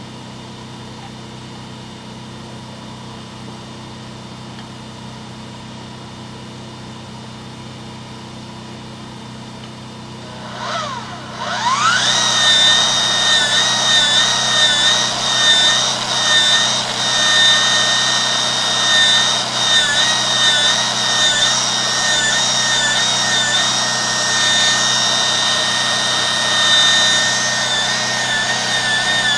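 A drain-cleaning machine's motor spins up about ten seconds in, its whine rising and then running on at a steady high pitch with a slight waver as it turns the cable to clear roots from the sewer pipe. A steady low hum sits underneath.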